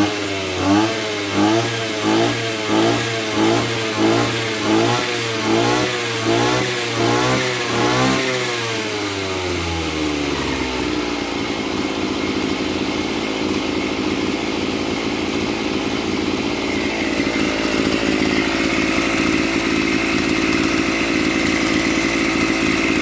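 Maruyama MB265 brush cutter's 26 cc two-stroke engine revved up and down in quick, even pulses, about one and a half a second. About eight seconds in it winds down and settles into a steady idle.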